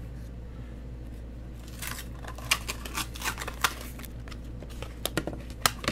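Packaging of a phone case being opened by hand: bursts of sharp plastic and cardboard clicks, crinkles and tearing that start about two seconds in and come again near the end, over a steady low room hum.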